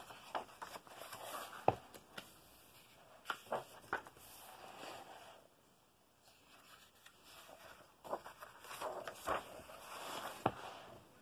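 Pages of a large paperback colouring book being turned: paper rustling and flapping, with several sharp soft taps as pages are handled and smoothed down. It goes quiet for about two seconds halfway through, then the rustling starts again.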